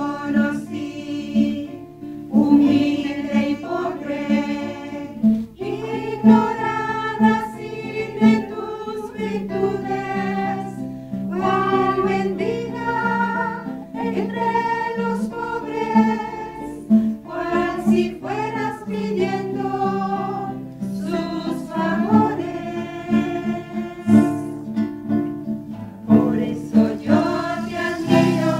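A small group of women's voices singing a song together, accompanied by a plucked acoustic guitar.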